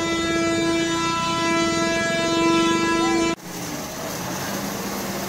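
A vehicle horn holds one long steady note for about three and a half seconds and cuts off suddenly, followed by a low steady engine hum with road noise.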